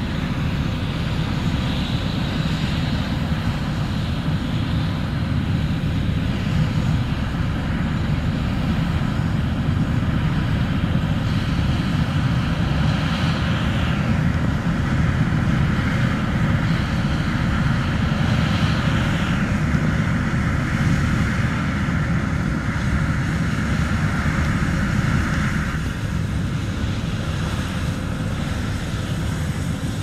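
Steady drone of diesel farm machinery at work: a John Deere tractor pulling a loaded auger grain cart across a harvested cornfield. A hissy upper layer in the noise shifts a few times while the low engine rumble holds even.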